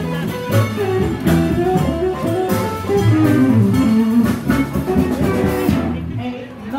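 Blues band playing an upbeat number through a PA, with guitar lines over bass and drum kit. The band thins out briefly near the end before coming back in.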